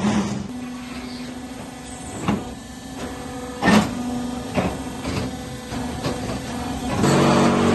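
Machinery running with a steady hum, struck by several sharp knocks and clatters. About seven seconds in a louder motor hum starts.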